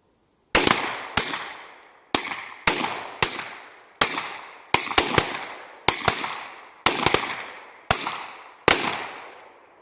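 Revolvers firing a timed field-shooting series, several shooters at once. The sharp shots begin about half a second in and come at irregular intervals, some nearly together. Each shot has a long echo that fades out.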